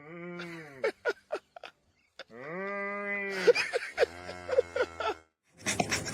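A farm animal bleating: two long calls that rise and fall in pitch, with a few sharp clicks between them, then a busier run of shorter calls. A louder noisy mix begins near the end.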